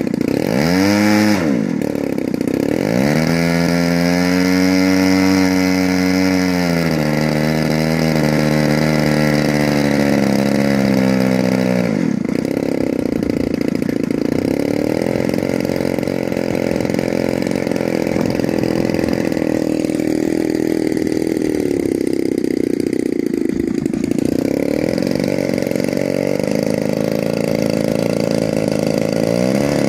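DLE 35 RA single-cylinder two-stroke petrol engine of a Hangar 9 Beaver model plane running on the ground, revved up and down on the throttle: it rises sharply about a second in and again around three seconds, holds high revs for a few seconds, steps down, then runs steadily at middle revs before dipping and rising again near the end.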